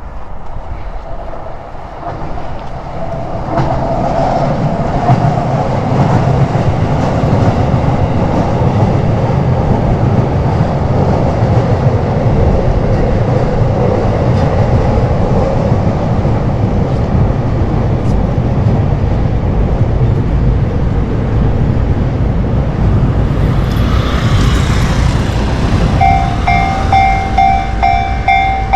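Yamanote Line electric commuter train passing over a level crossing, a loud steady rumble with clatter of the wheels on the rails that builds over the first few seconds. Near the end the level crossing's warning bell rings in a steady repeated ding-ding.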